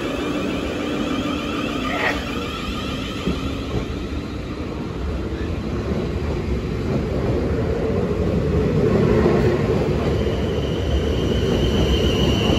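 South Western Railway Class 444 electric multiple unit pulling out past the platform, with a steady running rumble from its wheels and a whine from its electric traction. The sound swells about eight to nine seconds in, and a steady high tone joins about ten seconds in.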